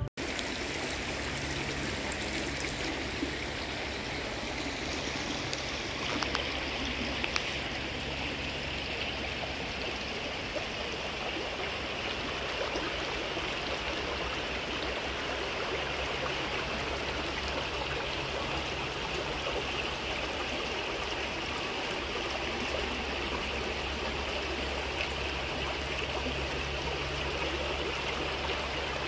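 Shallow river water running steadily over rocks and riffles.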